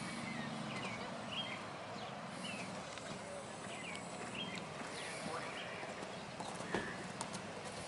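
Horse hooves clip-clopping at a walk, with a sharper knock a little before the end. Short high chirps recur throughout.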